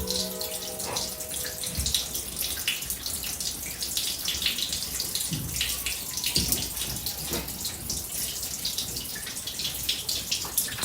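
Water leaking and dripping: many quick, irregular drips and splashes. A couple of dull low thumps sound about halfway through.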